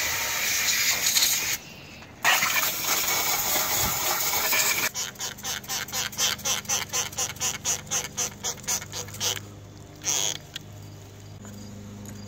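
Water jetting from a garden hose nozzle onto a bare aluminium engine block, a steady hiss with a brief break about a second and a half in. About five seconds in, a hand trigger spray bottle is pumped rapidly, about five squirts a second for some four seconds, spraying cleaner onto an intake manifold, with one last squirt near ten seconds.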